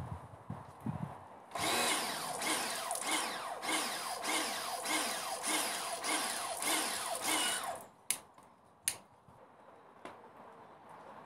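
Pressure washer firing a snow foam lance, its motor and spray pulsing evenly a little under twice a second instead of running smoothly, then cutting off abruptly; two sharp clicks follow. The surging is the washer playing up, which the owner suspects is air getting in through a leak in the hose.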